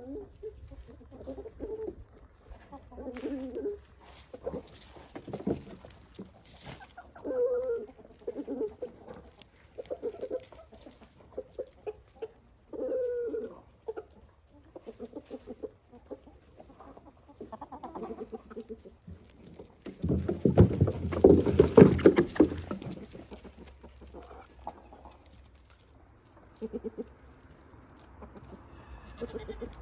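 Domestic chickens clucking, many short calls one after another. About two-thirds of the way through comes a few seconds of louder rustling noise over them.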